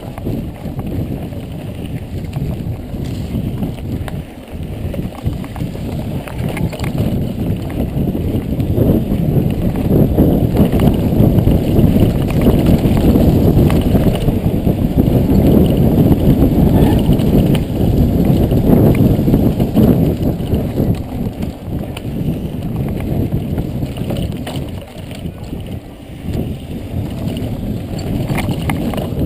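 Mountain bike ridden along a dirt trail: wind rushing over the microphone, with tyre noise and many short rattles and knocks from the bike over bumps. It is loudest through the middle.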